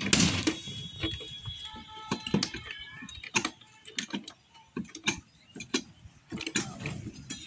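Irregular sharp clicks and knocks, about one or two a second, with a few brief high thin tones about two seconds in.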